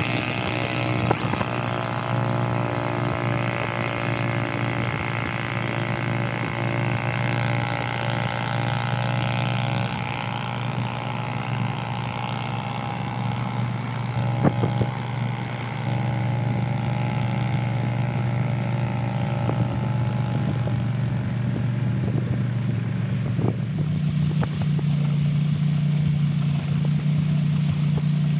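Engine of a small wooden motorboat running steadily under way, with water rushing past the hull. Near the end the engine note steps up to a higher pitch as it speeds up.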